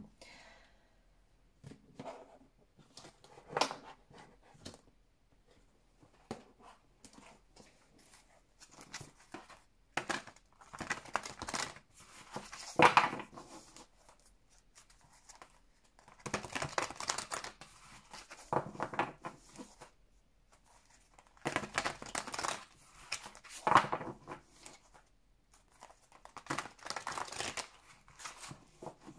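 A deck of tarot cards being shuffled by hand, the cards rasping and slapping against each other in bursts of a few seconds with short quiet pauses between them.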